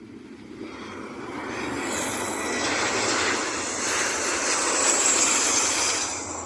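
Boeing 737-700 airliner landing, its CFM56-7B turbofan engines running with a rising, hissing jet noise that is loudest about five seconds in, then falls off near the end.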